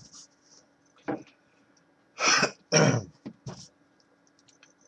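A man clearing his throat, with two loud rasps in quick succession about two seconds in and smaller ones around them; his throat is sore.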